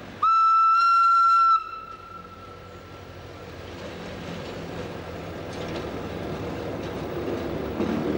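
Horn of a 1953 SGA ABDeh 4/4 electric motor baggage car giving one long single-pitched blast of about a second and a half, with a short fading echo. Then the rumble of the approaching railcar grows steadily louder.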